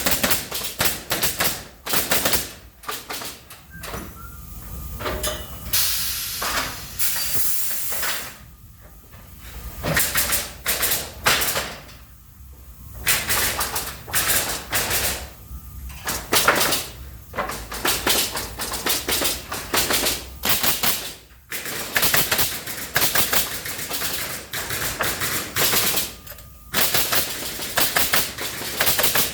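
Pallet-making machine at work: rapid clusters of sharp mechanical impacts, like a typewriter or machine gun, with bursts of hiss in between and short pauses between cycles.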